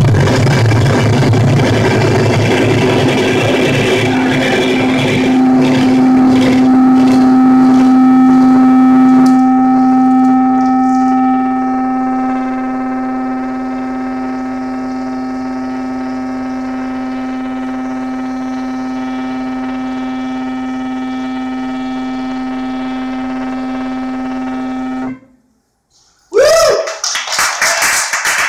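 Harsh noise music from a chain of effects pedals through an amplifier: a loud, dense wash of noise that settles into a steady pitched drone, then cuts off suddenly. After a moment of silence comes a short swooping squeal, then clapping starts near the end.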